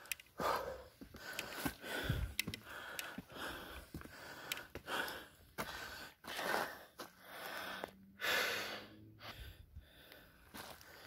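A person breathing hard and fast while climbing steep stone steps, with a loud puff about once a second. Faint footfalls tap on the stone between the breaths.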